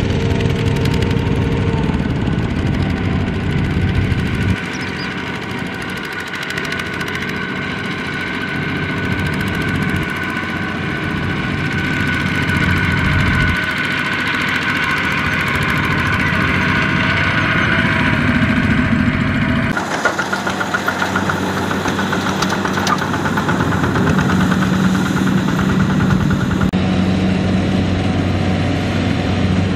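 Single-cylinder diesel engine of a two-wheel walking tractor (power tiller) running steadily, its note changing abruptly several times.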